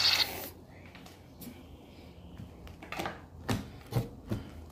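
Soft, sticky shaving-cream slime being kneaded and pulled up off a tabletop by hand. A loud squishing rub stops just after the start, then a few short, sharp sticky pops and clicks come as the slime stretches into strands.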